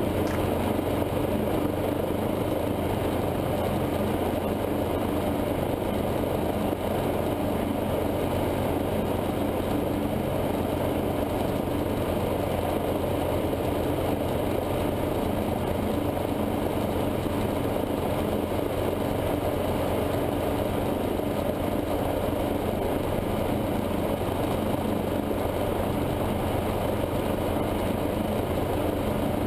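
Guimbal Cabri G2 helicopter's Lycoming O-360 four-cylinder piston engine and rotors running steadily on the ground, heard from inside the cockpit: a constant low drone that does not change in pitch.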